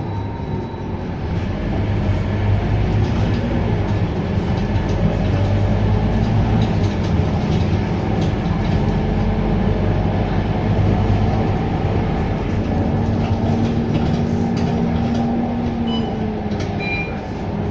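Scania K230UB city bus's diesel engine running under way, heard from inside the bus, its pitch rising and falling with the road speed. A few brief high squeaks come near the end.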